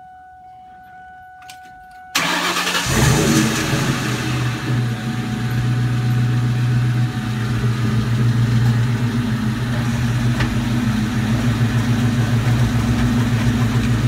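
Car engine starting about two seconds in, then running steadily.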